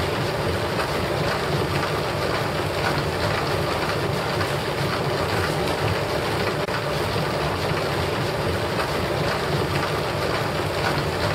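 Wooden gearing of a working Dutch windmill turning, the crown wheel and cogs giving a steady mechanical rumble and clatter.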